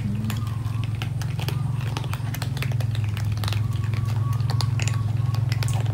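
Many cats crunching dry kibble together: a dense run of sharp, crackly crunches over a steady low hum.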